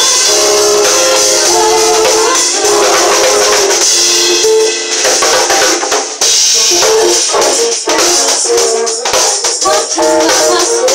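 Live band playing instrumental music: a drum kit with cymbals and a jingling tambourine, with guitar, recorded loud and close to the drums. About halfway through, the sustained notes give way to shorter, choppier playing.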